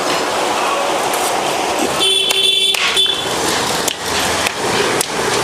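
Busy street noise with a short horn toot about two seconds in, then several sharp knocks from a small hand hammer near the end.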